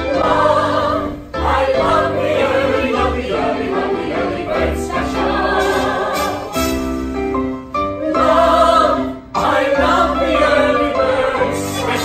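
A stage musical's cast singing together over instrumental backing, with brief breaks in the music about a second in and just after nine seconds.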